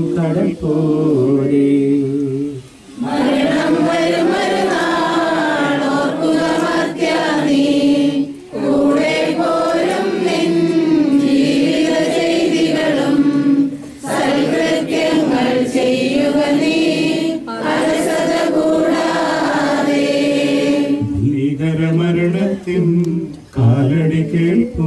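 Mourners singing a Malayalam funeral hymn together, unaccompanied. A priest's chanted prayer on held, stepped notes comes before it and returns near the end.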